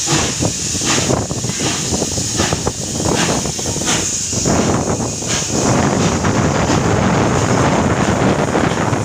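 Steam locomotive 3801 pulling out: exhaust chuffs about two a second, quickening, then from about halfway a steady rush of noise as the engine passes close.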